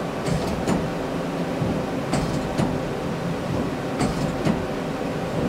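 Okuma Howa 2SP-V55 vertical CNC lathe's tool turret indexing: sharp metallic clicks in groups of two or three, about every two seconds, over the steady hum of the running machine.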